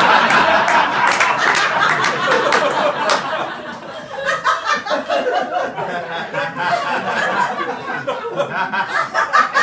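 Audience laughing, with scattered clapping in the first few seconds.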